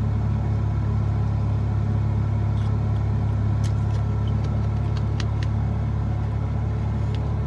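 Steady low hum of a parked car's engine idling, heard from inside the cabin, with a few faint light clicks in the middle.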